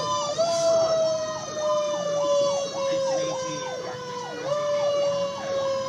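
Fire engine siren sweeping rapidly up and down, about one and a half times a second, over a second steady siren tone that slowly falls in pitch and is pushed back up about four and a half seconds in, heard from inside the truck's cab.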